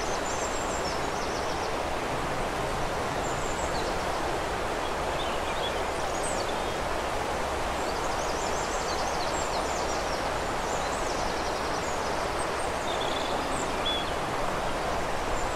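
Steady rush of flowing river water, with small songbirds singing over it in short high chirps and rapid trills every few seconds.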